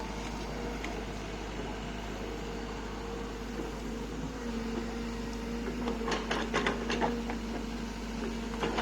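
SANY SY55C mini excavator running steadily with a held droning tone from its engine and hydraulics. About six seconds in comes a quick run of sharp clanks and knocks, with another near the end, as the machine works.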